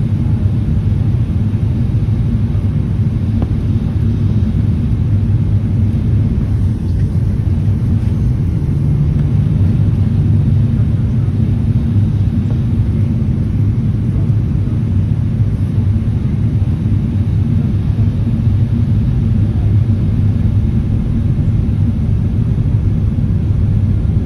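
Steady low rumble inside an airliner cabin during the descent to land: engine and airflow noise heard from a window seat, even throughout with no marked change.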